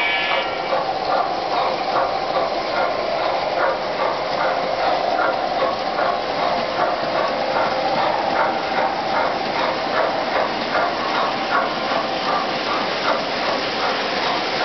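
O-gauge model trains (MTH and Lionel) running on three-rail track: a steady hum of motors and rolling wheels with an even, repeated ticking of wheels over the track.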